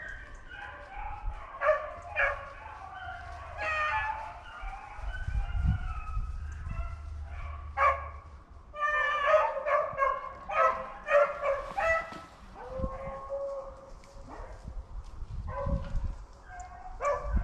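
A pack of hunting dogs baying and yipping as they run a rabbit, several voices overlapping, with one long drawn-out bay about three quarters of the way through.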